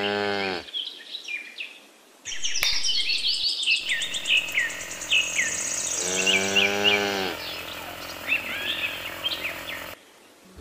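A cow mooing, one call ending about half a second in and a second long moo about six seconds in, over many small birds chirping and twittering that start about two seconds in and stop suddenly near the end.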